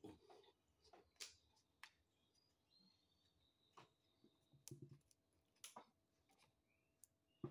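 Faint, scattered clicks and small knocks, about eight spread unevenly over several seconds: small handling and mouth noises from lowering a plastic water bottle and chewing close to the phone's microphone.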